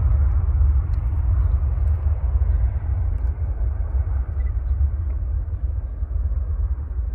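Jet aircraft engines giving a deep rumble that slowly fades away.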